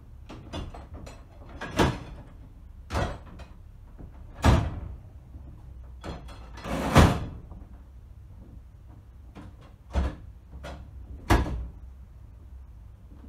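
Mechanical clunks and clicks from a manual signal box's lever frame and block instruments being worked: about six sharp knocks a second or more apart, each with a short ring, and lighter clicks between them.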